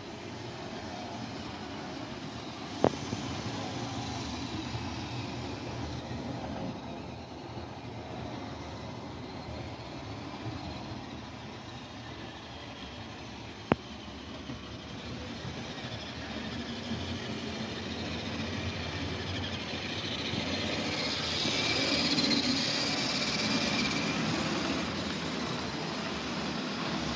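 HO scale model trains running on the layout track: a steady rolling rattle of small wheels and motors, with two sharp clicks, growing louder near the end as the model Amtrak passenger cars pass close by.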